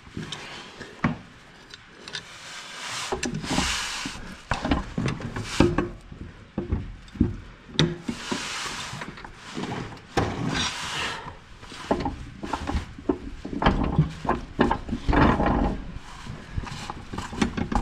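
Hand tools working at a stuck mower-blade bolt under a Toro TimeCutter deck: irregular knocks and clanks, with several rasping scrapes of about a second each.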